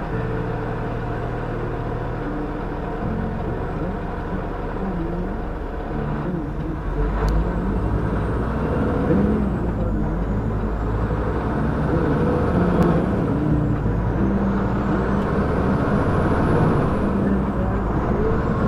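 The dashcam vehicle's own engine heard from inside the cab: a steady low idle, then louder from about seven seconds in as it pulls away and drives on, with a faint high whine that rises and falls.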